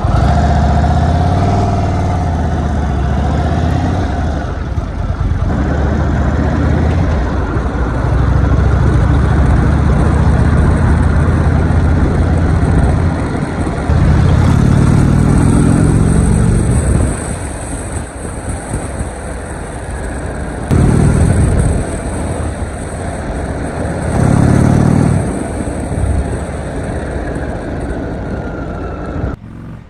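Indian Vintage Dark Horse cruiser's V-twin engine pulling away and accelerating in several surges, the engine note rising each time and dropping back between them as the rider shifts and eases off.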